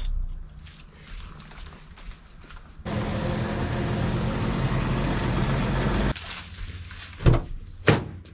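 Mercedes-Benz Sprinter van's engine running for about three seconds and cutting off suddenly, followed by two sharp thumps a little over half a second apart.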